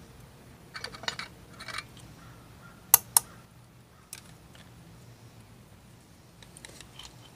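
Steel and fibre clutch plates of a 1982 Honda GL500 clicking against each other and the clutch basket as the clutch pack is pulled out: a cluster of light clicks, then two sharp clicks about three seconds in, and a few faint ticks near the end.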